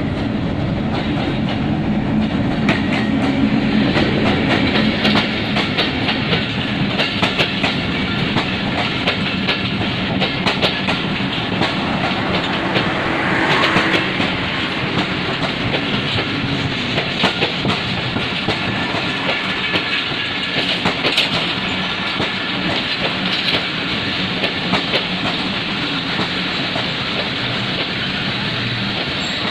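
Passenger train running past close by. The diesel locomotive's engine drones steadily at first, then the coaches roll by with repeated clicks of their wheels over the rail joints.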